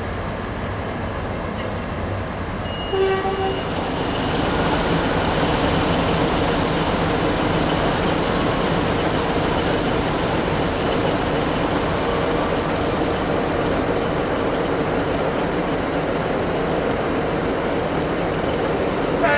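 Diesel multiple unit, a DH2 'Wadloper' railcar, sounding a short horn toot about three seconds in, then steady diesel engine and running noise that grows louder and holds. A second horn blast starts right at the end.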